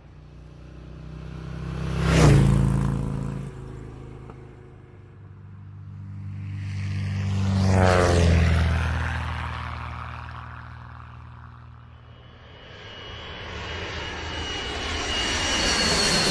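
Engine-driven aircraft passing close by twice: a quick, sharp pass about two seconds in and a slower pass peaking about eight seconds in, each swelling up and fading away. From about twelve seconds on, another engine sound with high whistling tones builds steadily.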